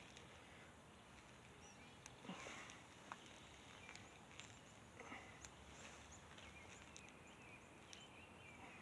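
Near silence: faint room tone with a few soft, brief whooshes about every three seconds.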